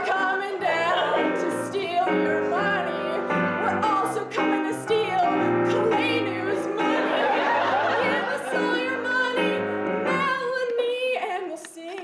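A woman singing an improvised song with electric keyboard accompaniment; the keyboard chords drop out about a second before the end.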